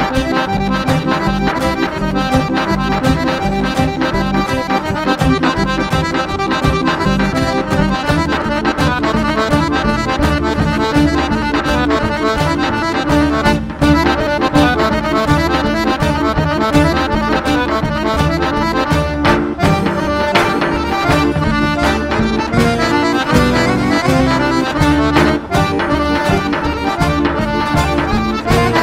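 Instrumental Greek traditional dance music: an accordion carries the tune over a steadily beaten large double-headed drum (daouli), with a laouto playing along.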